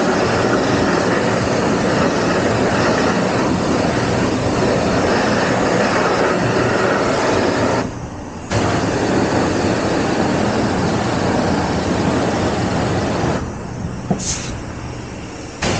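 Pressure-washer wand spraying a hissing jet of water against a motorcycle's bare engine and frame, with a low pump hum underneath. The spray cuts off for about half a second about eight seconds in, and for about two seconds near the end, where a short high squeak sounds.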